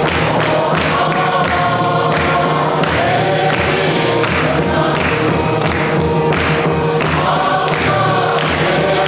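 A large congregation singing a hymn together in unison, with steady hand-clapping keeping the beat.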